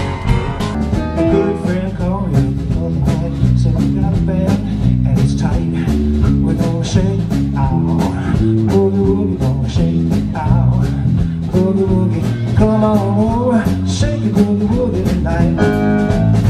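Live band music with a steady beat: electric guitar, bass, keyboard and drums playing a blues-flavoured passage.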